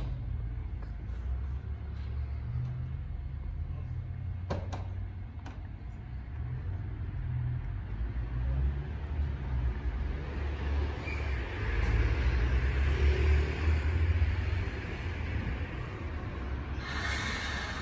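Shin-Keisei N800-series electric train standing at a station platform, with a steady low rumble. About four and a half seconds in there is a single knock, and from about nine seconds in a hiss swells and then fades again.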